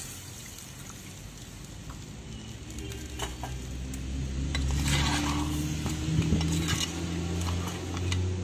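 Water poured into a hot clay pot of crab masala, sizzling, then a steel spoon stirring and scraping against the clay pot with sharp clinks and scrapes. A low steady hum runs underneath from about three seconds in.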